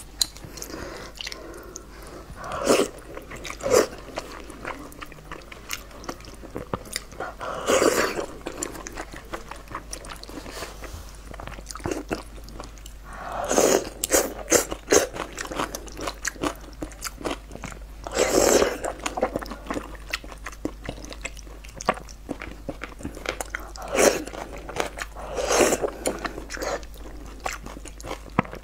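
Close-miked eating: several loud slurps of wide glass noodles in a thick sauce, with wet chewing and mouth clicks in between.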